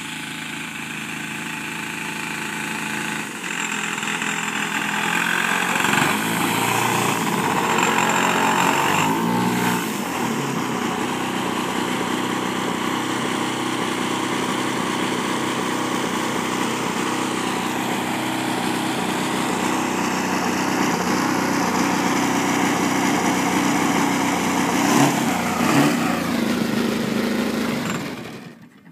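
Engine and propeller of a large-scale CARF SU-31 radio-controlled aerobatic model plane running on the ground. It rises in loudness and shifts in pitch up and down over the first ten seconds, runs steadily after that, then cuts off abruptly near the end as the engine is shut down.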